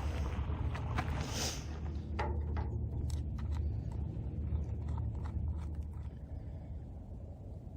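Small clicks and scrapes of radio gear being handled, mostly in the first few seconds, over a steady low rumble.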